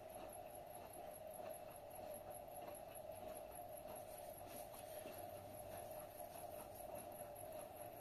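AEG Öko-Lavamat front-loading washing machine running with its empty drum turning slowly: a faint, steady hum with light, irregular ticks.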